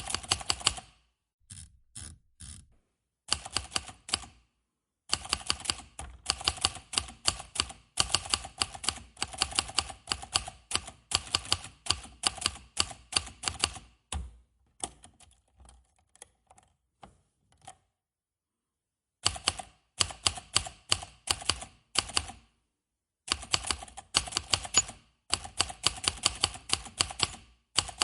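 Manual typewriter keys striking in fast runs of sharp clacks, broken by short pauses. Past the middle the strokes grow softer and sparser, then stop for about a second before the typing picks up again.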